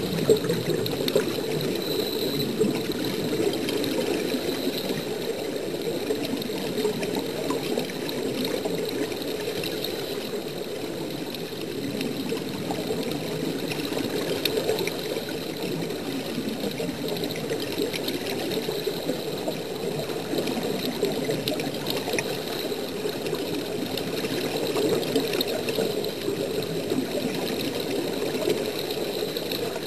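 Steady bubbling and rushing of air and water, as heard underwater around a diving helmet that is venting its air supply.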